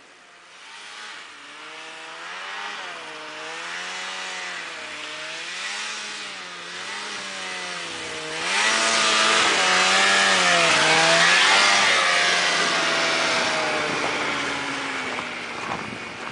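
Snowmobile engine revving up and down, its pitch rising and falling every second or two. It grows louder, is loudest just past the middle with a rush of noise, and then fades away.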